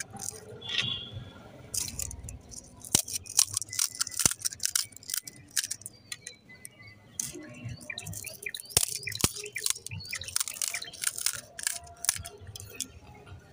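Crisp fried fuchka (puchka) shells cracking and crackling as fingers break open their tops, in irregular sharp snaps, a few louder ones among them.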